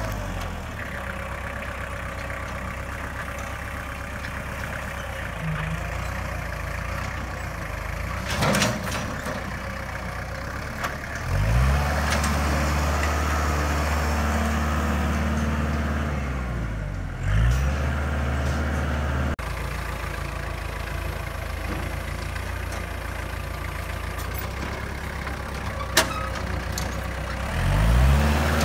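Kubota compact tractor's diesel engine running steadily, revved up about a third of the way in, eased back a little past halfway, and revved up again near the end as the front-loader bucket pushes into the dirt mound. Two short sharp knocks stand out, one early and one late.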